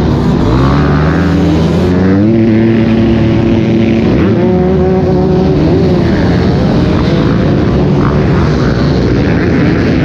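Motocross bike engine at full throttle, its pitch climbing over the first couple of seconds and then holding high and steady, as on a top-speed run.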